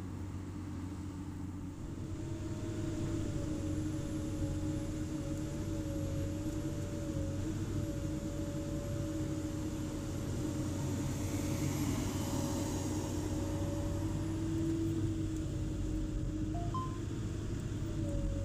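Komatsu PC200 excavator's diesel engine and hydraulics running steadily under load, a low rumble with a held whine that wavers slightly in pitch. About twelve seconds in, a short rush of hiss as the bucket scrapes through soil.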